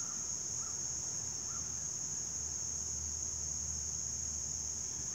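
Steady, unbroken high-pitched chorus of insects such as crickets, with a few faint short calls.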